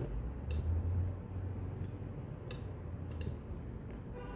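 A few faint clicks of a metal prying tool working at a phone's glued-in battery, spaced about a second apart, over a low handling rumble in the first second.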